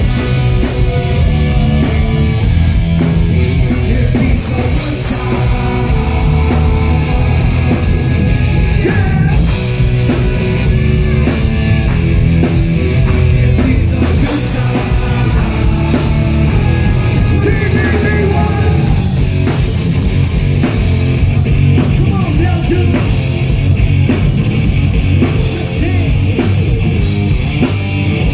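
Rock band playing live and loud: electric guitars, bass guitar and drum kit, with a sung vocal over them.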